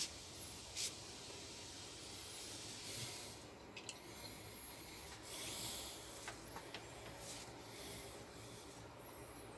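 Red paracord faintly rubbing and swishing as a braided survival bracelet is pulled apart by its release strand and unravels, with two light clicks in the first second.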